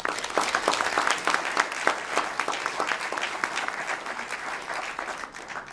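Audience applauding: many hands clapping together, easing off near the end.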